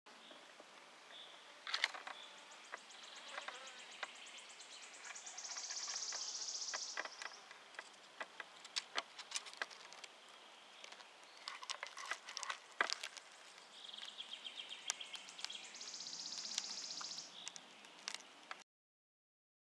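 Faint woodland ambience with high-pitched, rapidly pulsed trills two or three times, each a second or two long, and scattered light ticks and clicks; the sound cuts out suddenly near the end.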